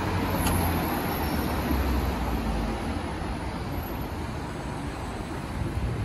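City street traffic: motor vehicles passing, a steady noise with a low rumble that is stronger in the first half and eases off after about three seconds.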